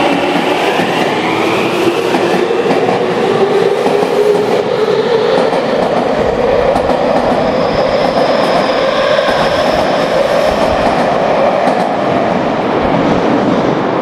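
Tokyu 5050-series subway train accelerating out of an underground station: its traction motor whine climbs steadily in pitch, over clattering wheels.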